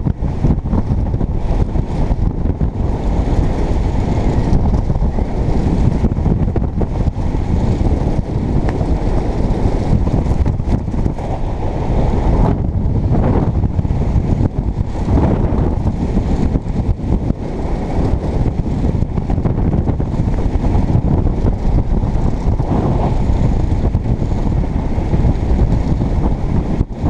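Wind buffeting a helmet-mounted camera's microphone as a skydiver descends under a parachute: a steady, loud rumble that rises and falls in gusts.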